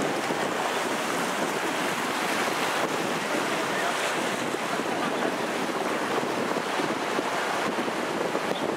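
Steady rushing noise of wind on the microphone, mixed with the flow of the flooded Sava river.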